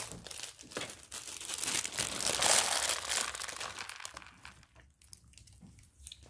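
Crinkling of a plastic bag holding small white balls as it is handled, dense and crackly for the first three or four seconds, then dying down to faint handling sounds.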